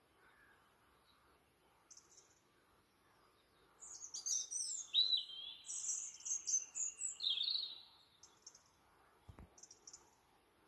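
A songbird singing in the dark: a burst of varied high whistled phrases with rising and falling notes in the middle, lasting about four seconds, with short high chirps every couple of seconds before and after, over faint steady background noise.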